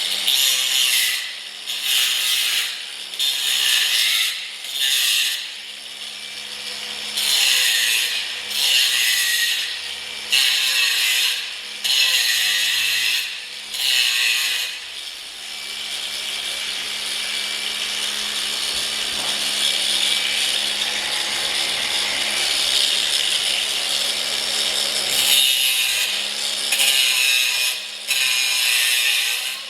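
Electric grinder grinding down metal tack welds, its motor running steadily throughout. It makes a series of short grinding passes of about a second each, then one steady pass of about ten seconds from around the middle, then short passes again.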